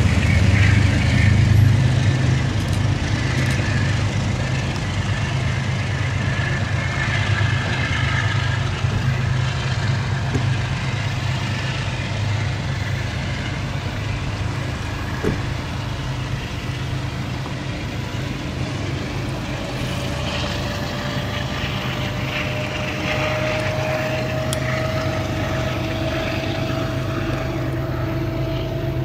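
Amtrak P32AC-DM diesel locomotive engine running with a deep, steady rumble that slowly fades. A faint whine rises gently in pitch in the last third.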